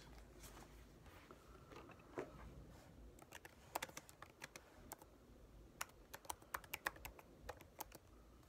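Fingers typing on a device's keyboard: a scattered run of light, quick taps, most of them from about three to eight seconds in.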